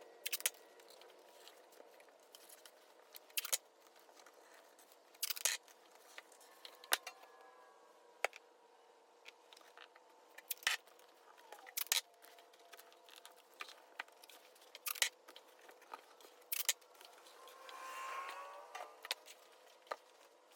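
Tape being pulled off the roll and torn, among scattered sharp clicks and taps from handling glued plywood shelf pieces, with a longer pull of tape near the end.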